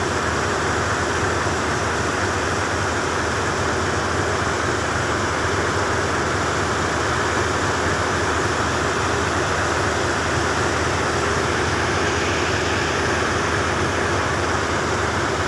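A boat's engine running steadily under a constant rush of wind and water.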